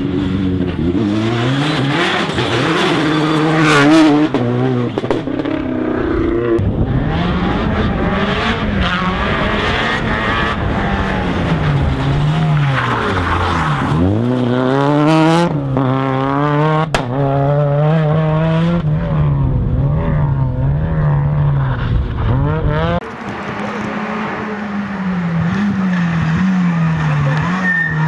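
Rally car engines at full racing pace, revving hard and changing gear, the pitch falling and climbing as the cars brake and accelerate; one deep drop in pitch comes about fourteen seconds in. The sound changes abruptly twice, about six and twenty-three seconds in.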